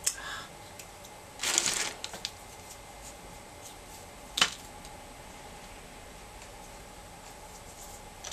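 Seashells being handled: a click at the start, a short rustling clatter of shells about a second and a half in, and one sharp click of a shell set down about four seconds in.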